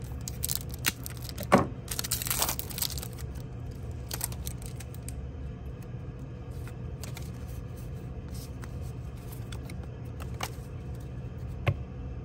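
Foil Pokémon booster pack wrapper being cut open and crinkled, a cluster of sharp crackles with the loudest about a second and a half in, followed by quieter handling of the trading cards with a few light clicks as they are flipped through.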